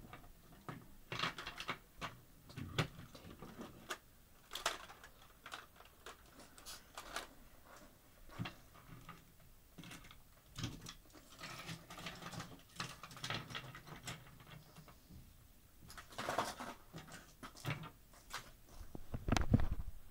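Plastic action figures being handled and moved about: irregular clicks, clacks and rustling. A louder low thumping comes near the end.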